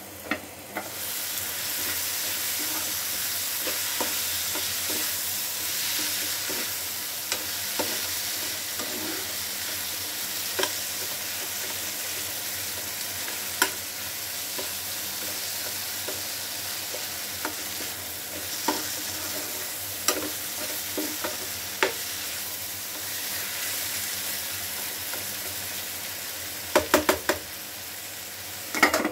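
Paneer, tomato and onion sizzling in a frying pan while being stirred with a steel spoon, the spoon clinking against the pan now and then. The sizzle comes up about a second in as the pan is uncovered. Near the end there is a quick run of metal knocks, and then the sizzle drops as the pan is covered again.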